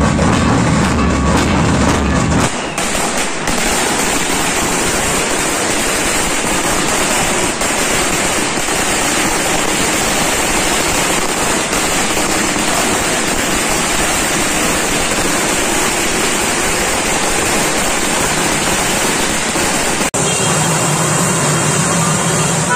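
Brief band drumming and music, cut off about two and a half seconds in by a long string of firecrackers crackling in a dense, continuous rattle for about seventeen seconds. Band music comes back near the end.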